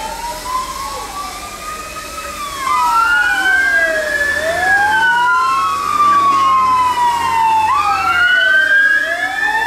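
Wail sirens of a convoy of old fire engines led by a Volvo FL6, several sirens sweeping slowly up and down out of step with each other. They grow louder about three seconds in as the engines come closer.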